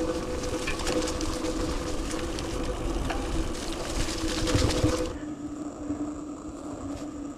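Mountain bike riding over a dirt trail: tyre and wind noise with a stream of small rattles and knocks over a steady hum. About five seconds in, the noise drops abruptly to a quieter steady hum.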